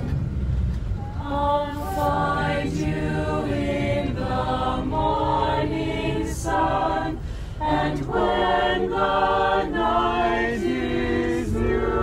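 A choir singing unaccompanied, holding chords that move from note to note every second or so, over a steady low rumble of the coach bus.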